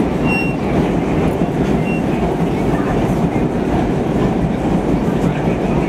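Vintage R1–R9 subway train running through a tunnel: a steady, loud rumble of steel wheels on the rails, heard from inside the rear car.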